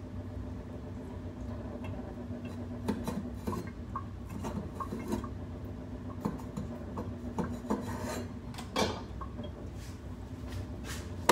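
Faint kitchen handling sounds: rubbing and light clicks and knocks of utensils and dishes, with one slightly louder knock about nine seconds in, over a steady low hum.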